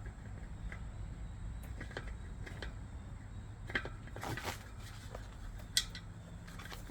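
Scattered light clicks and rustling from handling a bicycle tire and inner tube on the wheel rim, with a couple of sharper knocks about four and six seconds in, over a steady low hum.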